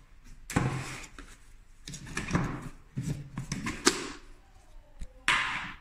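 Plastic lid of a salt tub being pried off and handled: a string of knocks and clatters, with a louder scraping rustle near the end.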